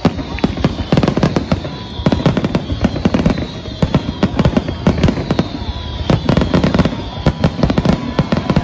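Aerial fireworks bursting in quick succession: a dense, continuous run of loud bangs and crackles.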